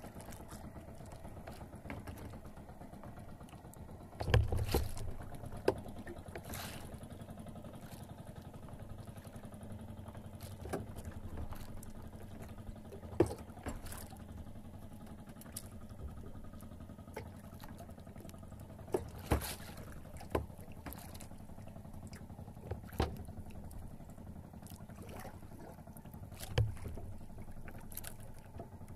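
Small outrigger fishing boat at sea: water washing along the hull over a steady low hum. A handful of sharp knocks and clicks are heard as the handline is worked over the side, the loudest a thump about four seconds in.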